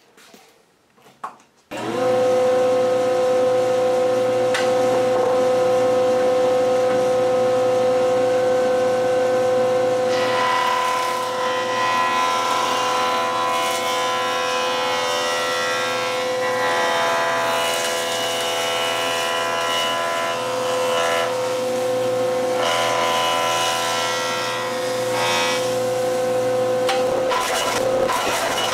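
A jointer and the dust collector it switches on start up suddenly about two seconds in and run with a steady hum. From about ten seconds in, the jointer's cutterhead planes a long oak board, and a harsh cutting noise swells and eases over the motor several times as the board is fed through.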